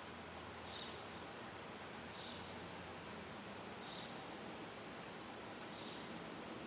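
Quiet rural outdoor ambience: a steady faint hiss with a small high chirp repeating about every second and a half, and fainter quick ticks above it.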